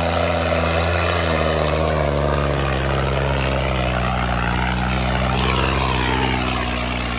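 Diesel tractor engine running at high revs, its pitch dropping a step about two seconds in and then holding steady.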